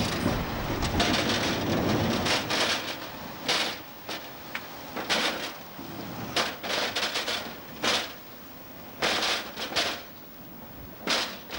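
Sugar beets pouring out of the back of a truck onto a pile: a dense, continuous clatter of tumbling beets that breaks up after about four seconds into separate short rushes as the flow slackens.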